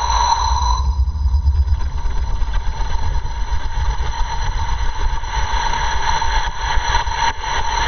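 HEAT-1X 65 kN hybrid rocket motor firing during ascent, picked up by a camera riding on the rocket: a loud, steady low rumble with steady high-pitched tones over it.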